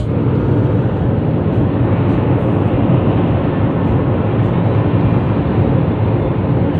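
Steady road noise of a car cruising at motorway speed, heard from inside the cabin: a continuous low rumble of tyres and engine.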